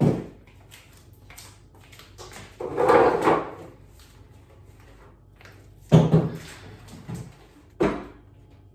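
Chairs being lifted and set onto a table: a few sharp knocks, and a longer, louder noise about three seconds in.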